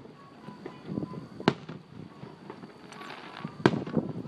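Aerial fireworks going off: two sharp bangs about two seconds apart, the second followed by a spell of crackling.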